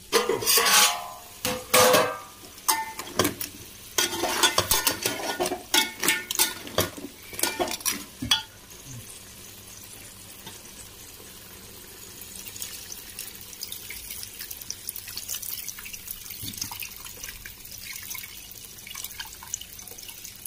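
Metal clanks and scrapes as the aluminium cooking pot's lid is handled and the pot worked for about eight seconds, then a faint steady hiss with small drips of liquid, as condensed water runs off the tilted lid.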